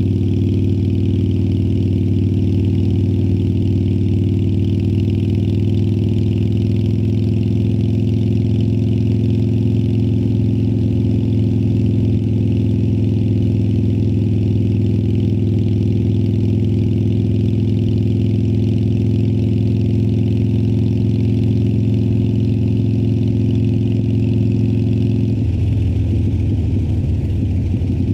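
2018 Harley-Davidson Sportster Iron 1200's air-cooled 1200 cc V-twin, heard through Vance & Hines Twin Slash slip-on exhausts, running at a steady engine speed. Near the end the engine note briefly breaks up for a couple of seconds, then settles back to a steady run.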